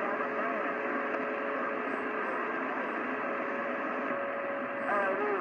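CB radio receiver hissing with band noise between transmissions, with a faint steady tone and weak, garbled distant voices mixed in. The signal meter sits low, so no strong station is coming through; a voice begins to break through near the end.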